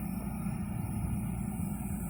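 Combine harvester cutting rice, its engine and machinery running in a steady low drone.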